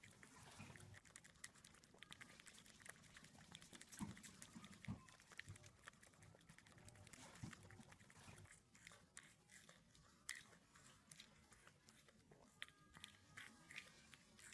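A small puppy lapping a milky drink from a glass with its tongue: faint, irregular wet licking and smacking clicks.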